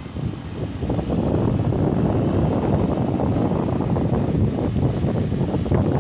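Wind buffeting a phone microphone: a loud, steady, rumbling rush that swells about a second in.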